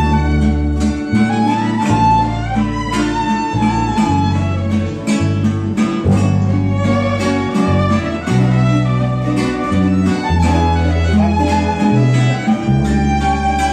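Venezuelan string ensemble playing live: a violin carries the melody over strummed cuatros, guitar and a bass line with steady, changing low notes.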